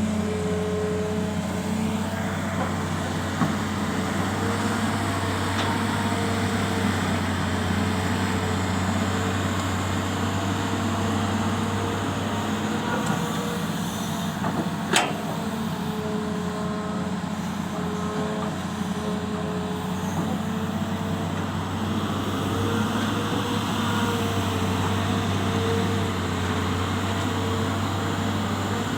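Excavator's diesel engine running steadily, with a higher tone that wavers in pitch as it works and a single sharp knock about halfway through.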